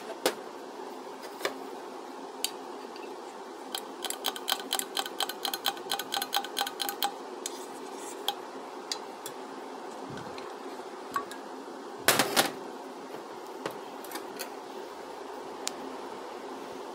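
Metal engine parts, a steel gudgeon pin and a piston, clinking and tapping against each other and a metal workbench as they are handled, with a quick run of light ringing clinks a few seconds in and a louder short clatter about twelve seconds in. A steady low hum runs underneath.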